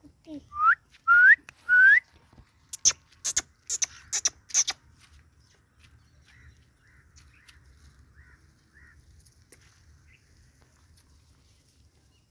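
A person whistling three short rising whistles in quick succession, the kind used to call a dog. They are followed by a run of sharp clicks and then a few faint short chirps.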